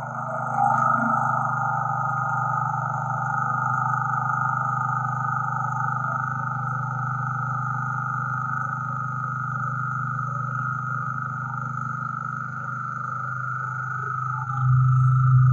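Portable petrol generator's small engine running steadily at constant speed on a test-fitted carburetor, with no surging or hunting: the carburetor is working properly. It grows somewhat louder near the end.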